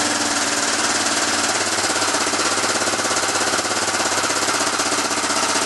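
Yamaha Big Bear 4x4 ATV's single-cylinder four-stroke engine idling with a steady rapid beat, warming up just after a surprise cold start at about −20 degrees.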